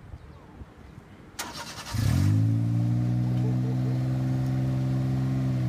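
Honda N360's 660 cc twin-cylinder engine starting: a short burst of cranking, then the engine catches about two seconds in and settles into a steady idle.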